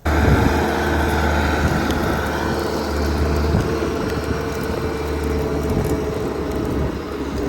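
Skid steer's diesel engine running steadily at working revs, a constant low drone with a steady higher whine over it; it cuts in suddenly at the start.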